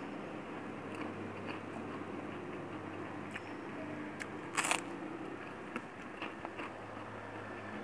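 One loud crunch as a crispy white cracker (kerupuk) is bitten, about four and a half seconds in, with smaller crackles and chewing clicks before and after over a steady low hum.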